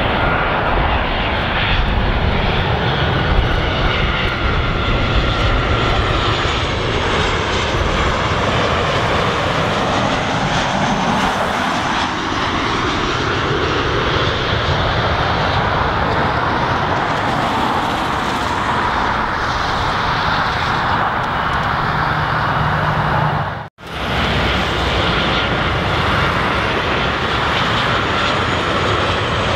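Boeing 737 airliners' CFM56 turbofan engines on final approach, a loud steady jet drone with a faint high whine over it. About three-quarters of the way through, the sound drops out suddenly for a moment and comes back.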